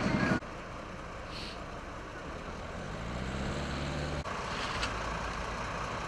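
Fire engine diesel engines running at idle at an emergency scene, with one engine rising in pitch as it revs for about a second midway. A short high beep comes about a second in.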